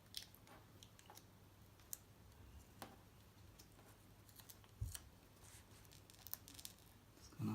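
Faint, scattered light clicks and taps from handling a replacement laptop LCD panel, with a soft low thump about five seconds in.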